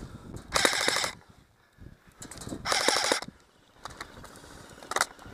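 Airsoft electric rifle firing two short full-auto bursts, each about half a second of rapid rattling, about two seconds apart, then a single sharp crack near the end.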